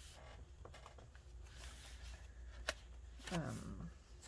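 Pages of a handmade paper-and-fabric journal being turned and handled: soft paper rustling with light ticks, and one sharp click a little past halfway.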